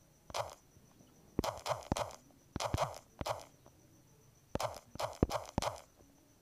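Fingertip taps while typing on a smartphone's on-screen keyboard, in quick irregular clusters of short knocks.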